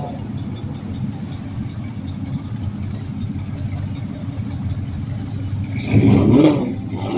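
Car engine idling with a steady low rumble. About six seconds in, a brief louder engine rev rises and falls.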